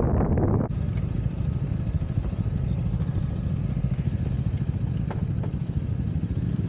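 Yamaha XMAX 300 scooter on the move: heavy wind noise on the microphone at first, changing abruptly under a second in to a steady low engine and road rumble with a few faint clicks.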